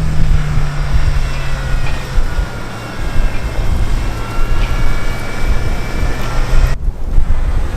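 Strong wind buffeting the microphone, with the steady hum of a vehicle engine running underneath that drops slightly in pitch early on and cuts off abruptly near the end.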